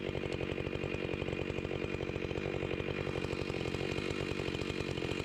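Husqvarna 592 XPG two-stroke chainsaw idling steadily, with an even, fast engine pulse and no revving.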